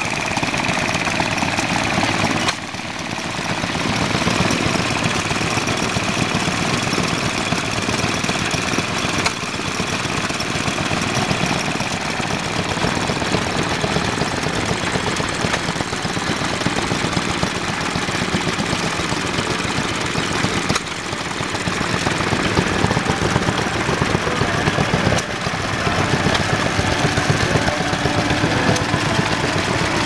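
Small vintage stationary engines running steadily, each with a fast, even putter of firing strokes, heard in several short clips that cut abruptly one to the next.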